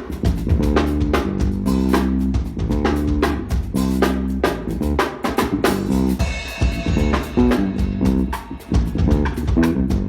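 A band playing: a drum kit keeps a steady beat of bass drum and snare hits over a bass guitar line, with a brief held higher note about six seconds in.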